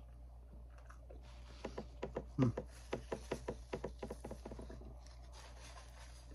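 Mouth sounds of a man chewing a bite of barbecue chicken and meat patty: a run of wet smacking clicks, about five a second, lasting about three seconds, with a brief 'mm' about two and a half seconds in.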